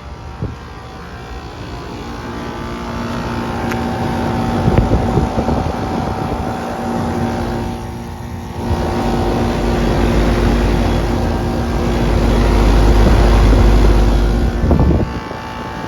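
Outdoor air-conditioner condensing unit running: a steady compressor hum over the fan's low rush of air, the rumble swelling and dipping as the microphone moves around the unit.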